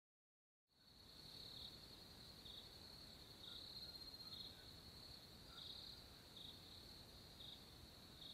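Faint crickets chirping, a steady high trill that pulses about once a second, beginning about a second in.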